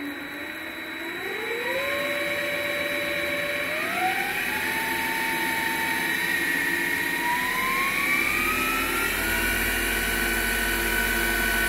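MX 8x14 variable-speed mini-lathe running with no gear train engaged and no load, its motor and spindle hum rising in pitch in several steps as the speed is turned up from about 150 to nearly 2,900 rpm, then holding steady. Underneath runs a steady high-pitched whine, which the owner thinks comes from the motor's PWM three-phase controller.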